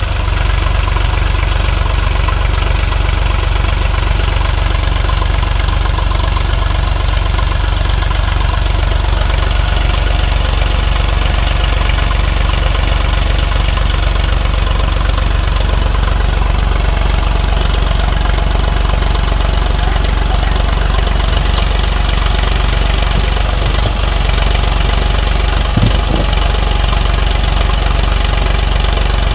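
Sonalika DI-35 RX tractor's diesel engine running steadily, a constant low drone, with the tractor and its loaded trailer stuck in deep sand. A single short knock sounds near the end.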